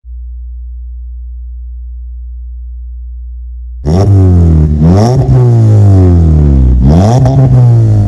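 A steady low hum for about four seconds, then a Skoda Rapid 1.4's four-cylinder engine is revved hard through a tuned exhaust with the resonator removed and an aftermarket rear muffler, the exhaust note rising and falling twice.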